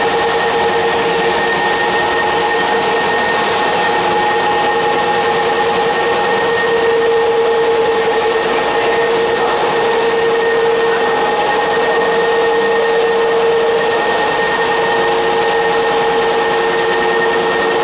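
A 50 kg sigma paste mixer running steadily, driven by its electric gear motor: a constant whine of several steady tones over an even mechanical hum.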